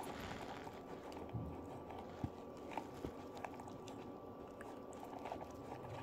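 Puppy gnawing on a long chew stick: soft crunching and scraping with scattered sharp clicks of teeth on the chew, a few every second.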